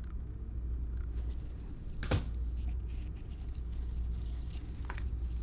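Trading cards being handled with gloved hands: faint sliding and rustling of the cards, with two sharp clicks about two and five seconds in, over a steady low hum.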